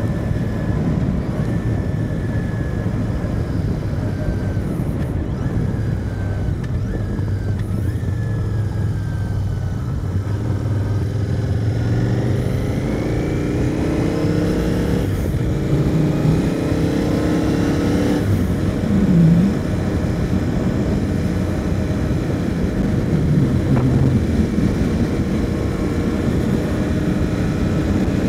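Royal Enfield Continental GT motorcycle engine running at a steady cruise under a low rush of wind. About halfway through, its note rises twice in a row as it accelerates up through a gear change, then settles back to a steady pull.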